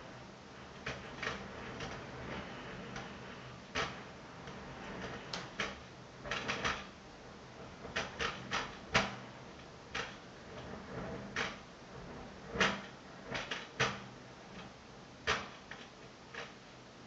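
Ventilation grille in an attic window clattering: irregular sharp clacks, some in quick runs of two or three, several seconds apart at times.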